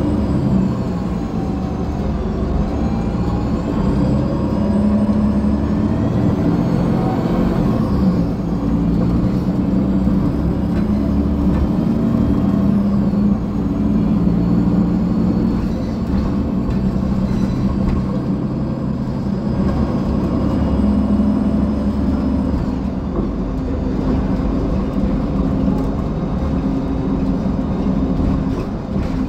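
2015 Gillig Low Floor transit bus's Cummins ISL9 diesel engine idling steadily while the bus stands still, with faint high whines rising and falling above the engine hum.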